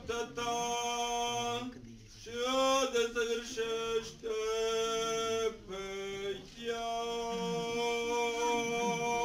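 Unaccompanied male singing of Orthodox liturgical chant, in long held notes with short breaks between phrases.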